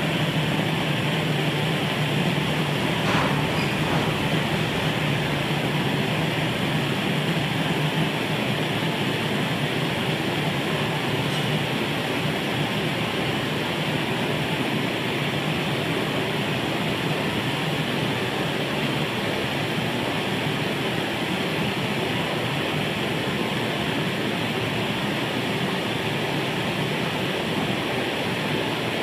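Clayton & Lambert Model 238 gasoline blowtorch burning steadily, its pressurised burner jet giving a constant, even rushing hiss.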